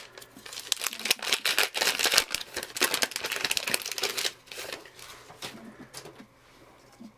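A Topps Gypsy Queen trading-card pack wrapper being torn open by hand: a dense run of crinkling and tearing for about four seconds, then fainter rustling as the cards are handled.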